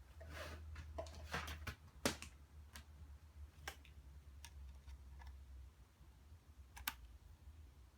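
Scattered sharp clicks and brief rustling handling noises over a low steady hum. The loudest click comes about two seconds in, with others near the middle and near the end.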